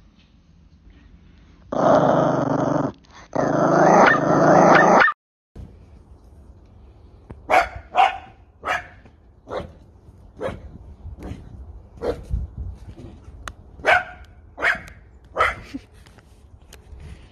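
A small terrier growling loudly into a floor vent in two long stretches, then, after a cut, a small terrier barking in short, sharp yaps about once or twice a second.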